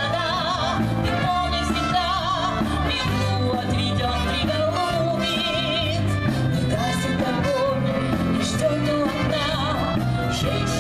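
Live brass and variety band with saxophones playing dance music, a wavering melody over a steady pulsing bass.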